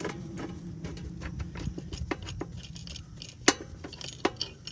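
Light metallic clicks and clinks as a loosened exhaust-to-frame mounting bolt on a Can-Am Ryker is unthreaded by hand and pulled out, with one sharper click about three and a half seconds in, over a faint low hum.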